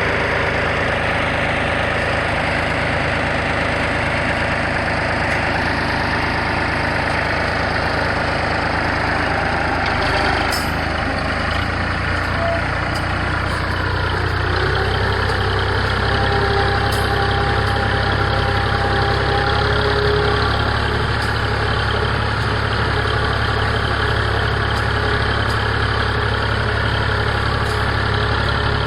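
Tractor engine running steadily under load while pulling a middle buster through a potato row, its note shifting lower about a dozen seconds in.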